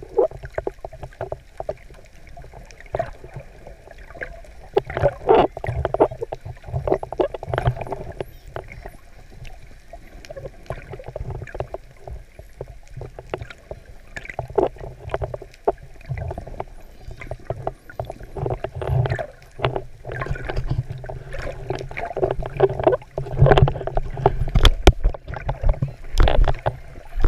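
Muffled underwater sound from a camera in a waterproof housing carried by a swimming snorkeler: water sloshing and irregular knocks and thumps, louder and busier near the end.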